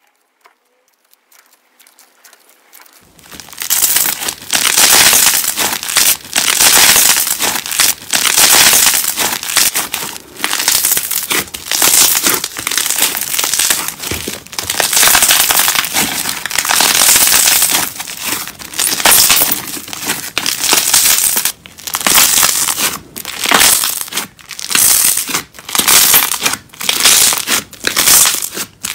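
A large lump of clear slime being stretched, folded and squeezed by hand, giving a crackling squish with each press in repeated surges, starting about three seconds in.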